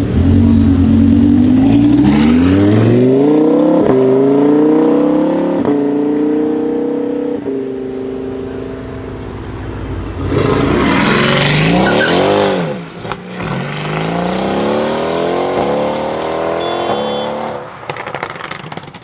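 Mercedes-AMG GT R's twin-turbo V8, on a Fi aftermarket exhaust, accelerating hard, its pitch climbing and dropping back at each of several quick upshifts as it pulls away and fades. About ten seconds in, a car sweeps close past with a falling pitch. Then another run of rising revs and upshifts fades out near the end.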